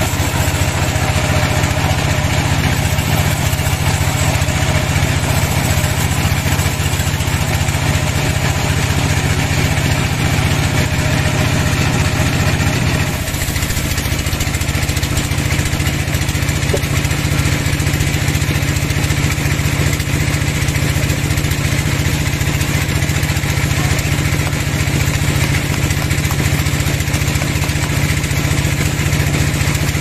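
Band sawmill running steadily with its blade in a large log, a loud continuous machine hum. About thirteen seconds in, the tone shifts abruptly and then carries on steadily.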